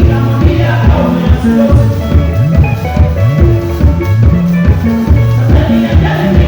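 Loud band music: a bass line stepping between notes over a steady drum beat, with faint singing.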